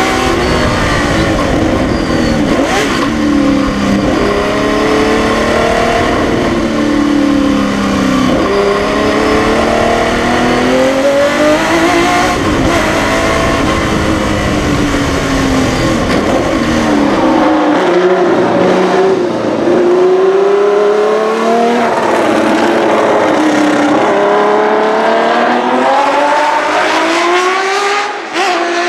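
1972 Tecno PA 123/3 Formula One car's 3-litre naturally aspirated 180° V12 engine, heard on board at full song. Its pitch climbs and drops again and again as the car accelerates, shifts and slows through the corners.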